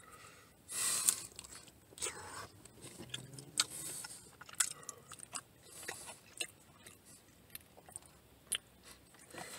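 A person chewing and biting a mouthful of loco moco close to the microphone: scattered small mouth clicks and soft wet chewing sounds.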